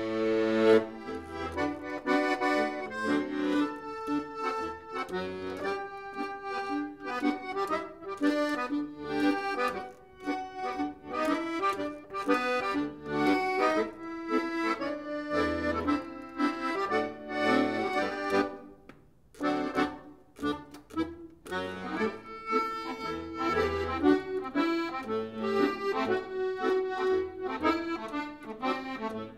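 Piano accordion played solo: a tune of many quick notes over lower bass notes, with a brief break about two-thirds of the way through before the playing resumes.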